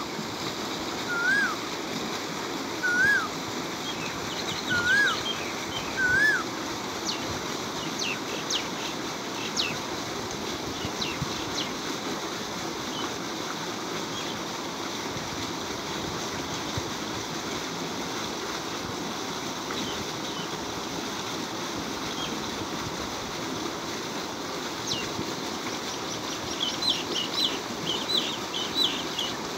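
Water gushing steadily from a tube-well pump's outlet pipe into a concrete tank, splashing. Birds call over it: four short rise-and-fall whistles in the first six seconds, then clusters of quick high chirps, again near the end.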